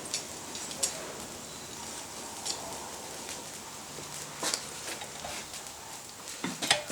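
A few light metallic clicks and clinks of blacksmith's tongs shifting their grip on a small steel workpiece, spaced out over a steady hiss, with a quicker cluster near the end.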